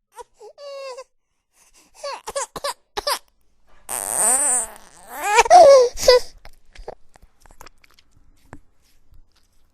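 Baby whimpering and fussing in short pitched bursts, then crying more loudly for about two seconds in the middle, after which only faint small sounds remain.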